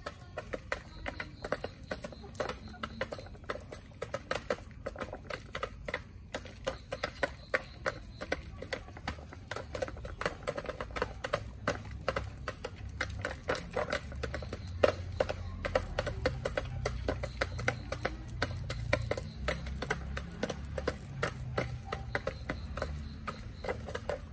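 Backyard chickens pecking feed, their beaks tapping quickly and irregularly in the tray of a plastic feeder and on the ground. A low rumble comes in underneath about halfway through.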